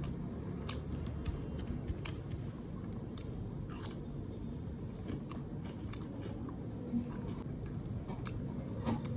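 Close-miked eating sounds: chewing and biting, with scattered crunches and wet mouth clicks, over a steady low hum.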